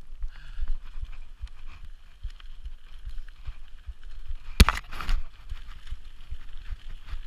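Mountain bike descending a dirt trail, clattering over bumps with frequent low knocks and rattles, and one sharp loud clack about four and a half seconds in.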